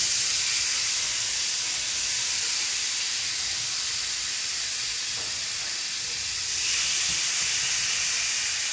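Marinated chicken breasts sizzling on a smoking-hot, unoiled cast iron grill pan, a steady hiss. The sizzle swells about two-thirds of the way through as a second breast goes into the pan.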